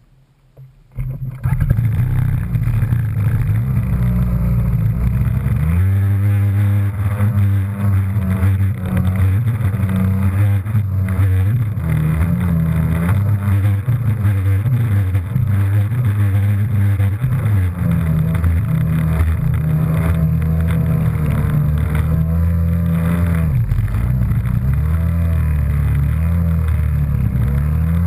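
Jet ski engine running under throttle, its pitch rising and falling as the rider speeds up and eases off. It comes in suddenly about a second in.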